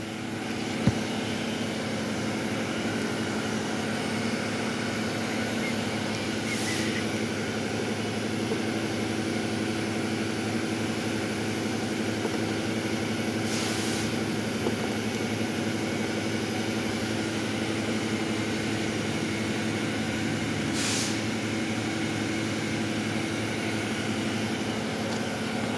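A steady machine hum with three short hisses of air about seven seconds apart, and a single knock about a second in.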